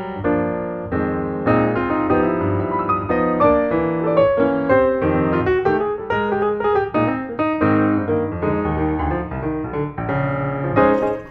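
Piano music playing, many notes struck in quick succession.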